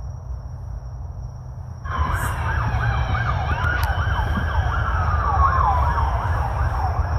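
An emergency vehicle siren in a fast yelp, wailing up and down about three times a second, starts abruptly about two seconds in over a steady low rumble.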